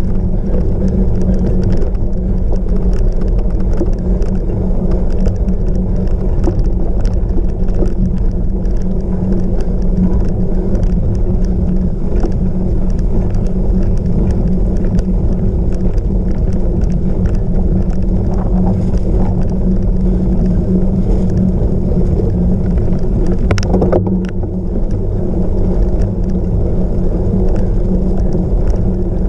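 Loud steady rumble of wind and rolling tyres from a camera riding on a cyclocross bike over rough ground, with frequent rattling clicks from the bike. One sharper knock comes late on, after which the rumble briefly drops.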